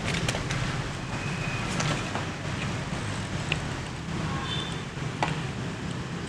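Scattered sharp clicks and knocks of scuba gear being handled as the BCD's strap and buckle are undone and the rig is lifted, over a steady low background rumble.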